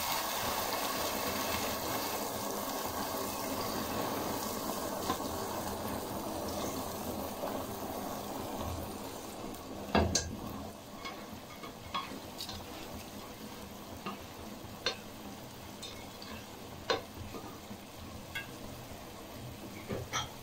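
Chicken and boiled chana dal sizzling in hot oil and masala in a pot while a slotted spatula stirs them in. The sizzle slowly dies down, and in the second half the spatula clicks against the pot several times, loudest about halfway through.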